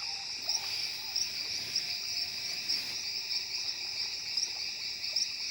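Amazon rainforest insect chorus: steady, high-pitched trilling in several overlapping pitches, with a slight pulsing in the highest one.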